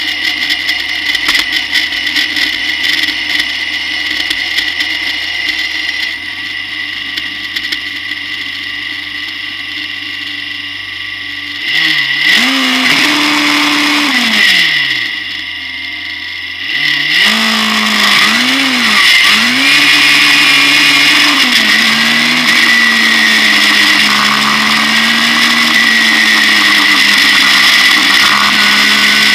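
Turbocharged 1.4 MG K-series four-cylinder engine of a Vision V89 clubmans racing car, heard onboard. It runs at low, steady revs for about twelve seconds, then revs up through the gears with rising and falling pitch, eases off briefly, and pulls hard again to hold high revs through the rest.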